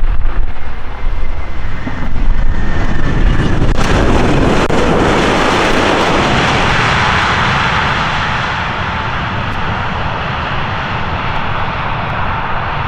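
Jet airliner engines at high power, a loud rushing noise over a low rumble that swells sharply about four seconds in and then slowly eases off.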